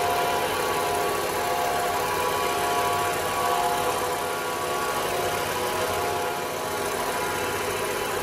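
Grinding machine running steadily, its motor and spinning wheel giving a constant hum with a faint steady whine.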